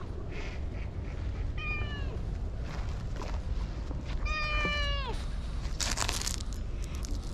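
Orange tabby cat meowing twice: a short meow about a second and a half in, then a longer one a few seconds later that falls in pitch at its end. A steady low rumble runs underneath, and a brief rustle comes near the end as a hand strokes the cat's head.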